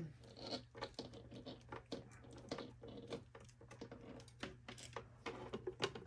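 Faint, irregular light clicks and taps of hands handling a plastic ultrasonic humidifier, as its power cord is pulled out of the water tank.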